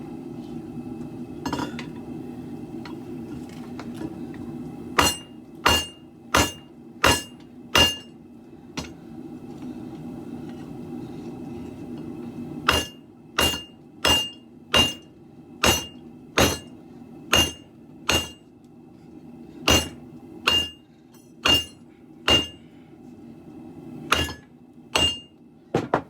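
Hammer blows on steel at the anvil while forging a sword blade: about twenty strikes in runs of three to eight, a little under a second apart, each with a short bright ring at one pitch. A steady low hum runs underneath.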